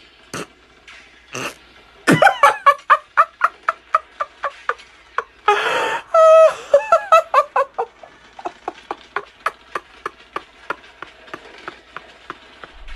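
A man's stifled laughter. Two short snorts come first, then a fast run of laughing pulses at about four a second, loudest around the middle, trailing off into fainter, evenly spaced pulses near the end.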